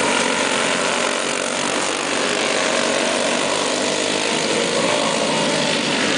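Several go-karts with Briggs & Stratton Animal single-cylinder four-stroke engines racing at full throttle, a steady blend of overlapping engine noise as the pack passes.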